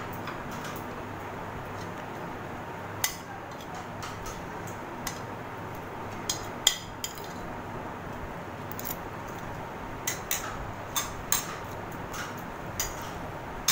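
Forks and spoons clinking against plates during a meal: about a dozen sharp, irregular clicks, the loudest about halfway through, over a steady background hum.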